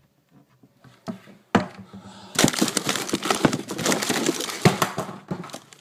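Handling noise: a sharp knock about a second and a half in, then about three seconds of dense rustling and clattering close to the microphone.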